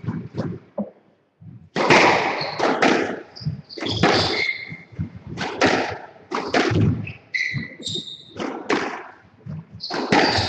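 Squash rally: the ball repeatedly smacking off rackets and the court walls, starting about two seconds in, with sharp shoe squeaks on the court floor.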